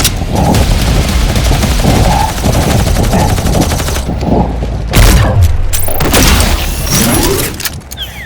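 Rapid, sustained gunfire, with a heavy boom about five seconds in.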